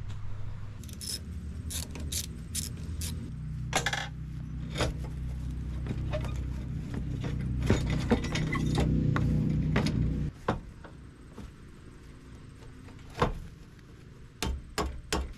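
Sharp metallic clinks and knocks as a car's front-end parts, a metal pipe and rubber hoses, are pulled off and handled. A low steady rumble underneath cuts off suddenly about ten seconds in, and a few more clinks follow near the end.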